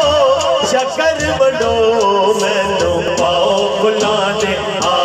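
A man's voice singing a naat into a microphone through a sound system, in long wavering, ornamented melodic lines, with a regular beat behind it.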